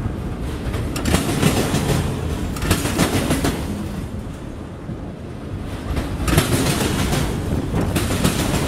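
Freight train of autorack cars rolling past: a steady rumble of steel wheels on rail, with louder clattering spells every couple of seconds.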